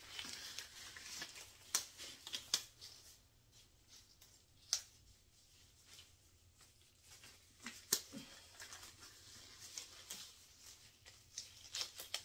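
Faint handling noises from someone cleaning up and changing disposable gloves: a soft rustle at the start, then a handful of sharp clicks and taps, with a small cluster near the end.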